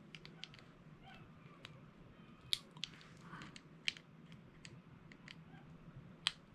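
Faint handling clicks and ticks from pliers and a small plastic Cat 6 junction box as a cable end is clamped lightly and its wires are fingered; the clicks come irregularly, three of them sharper than the rest.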